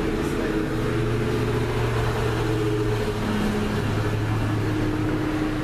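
Steady low mechanical hum, with a few faint tones that shift slightly in pitch.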